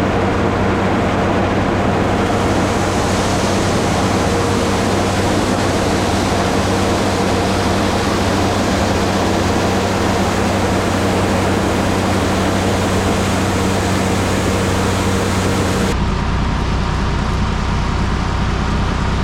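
Farm machinery running steadily: a loud rushing noise over a steady engine hum. About 16 seconds in, the sound changes abruptly, the rush dropping away and a deeper hum taking over.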